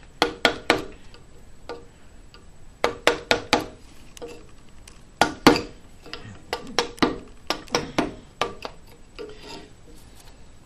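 A nearly flat No. 3 carving chisel being tapped through walnut: sharp wooden taps in quick runs of three to five, with a little scraping of the blade on the wood between them.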